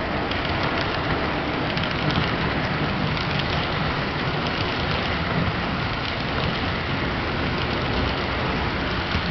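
HO-scale model freight train's covered hopper cars rolling past on the track, a steady rolling rumble with faint, irregular clicks from the wheels on the rails.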